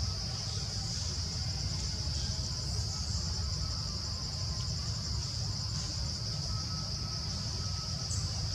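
Steady, high-pitched drone of an insect chorus, over a constant low rumble.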